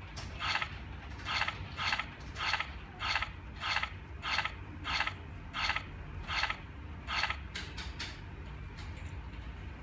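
A short electronic chirp repeated at an even pace, about every 0.7 seconds, ten times in a row, then a few faint clicks. The chirps come from the WG11 wireless alarm system's control panel.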